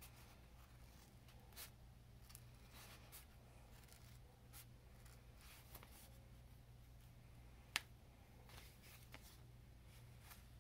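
Scissors snipping through craft foam in faint, irregular small cuts, with one sharp click about three-quarters of the way through, over a steady low hum.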